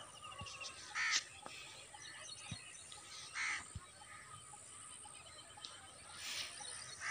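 Crows cawing, a few separate caws a couple of seconds apart, over faint chirping of small birds.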